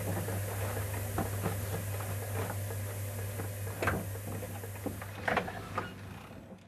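A steady low hum with scattered clicks and knocks, the loudest about four and five seconds in, fading out near the end.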